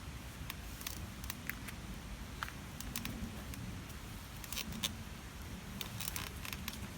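Scattered, irregular sharp clicks and crackles over a steady low rumble.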